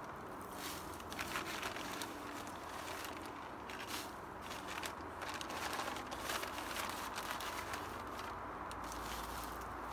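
People walking: irregular footsteps.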